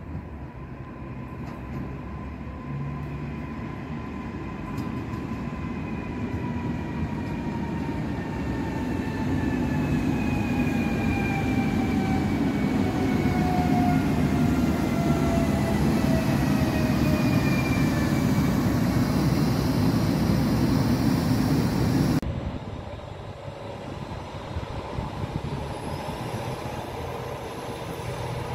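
Newag Impuls 31WE electric multiple unit coming in, its traction motor whine falling slowly in pitch as it slows, with the rumble of its wheels growing louder. The sound cuts off suddenly about 22 seconds in, and a quieter steady engine rumble follows.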